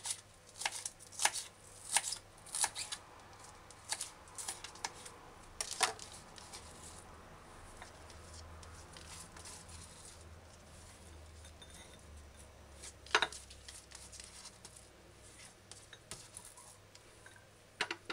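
Kitchen knife dicing scallions on a plastic cutting board: sharp, uneven chops about twice a second for the first six seconds, then mostly quiet, with a single knock about thirteen seconds in.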